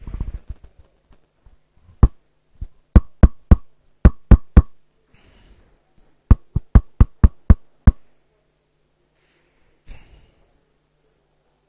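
Sharp knocks close to the microphone, in three quick runs of about five, three and seven taps at roughly four a second, each with a short ring.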